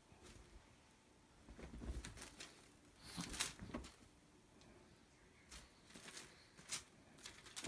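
Faint, scattered rustling and soft thumps of a Siamese cat pouncing and scrambling on a quilted bedspread while chasing a feather wand toy.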